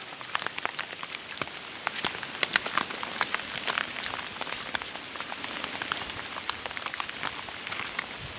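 Irregular crackling and snapping of twigs and leaf litter as a hiker walks through dense forest undergrowth, brushing past branches.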